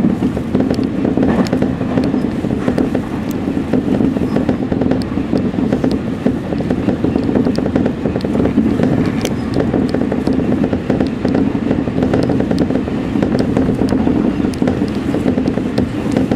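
Electric commuter train running at speed, heard from inside behind the driver's cab: a steady rumble of wheels on rails and running gear, with scattered clicks throughout.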